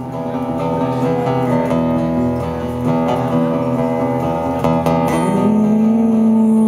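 Two acoustic guitars played together live in an instrumental passage of a slow song, plucked and strummed, with no singing. About five seconds in, a note slides up and is held.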